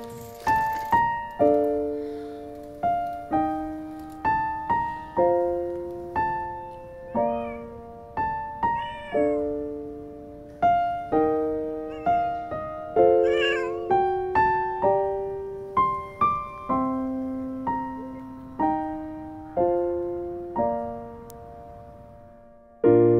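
Slow piano music, single notes struck and left to fade, with a cat meowing about three times around the middle.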